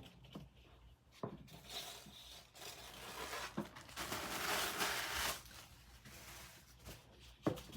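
Packaging being handled and torn, a crinkling, tearing rustle that is densest in the middle, with a few sharp knocks, the loudest near the end.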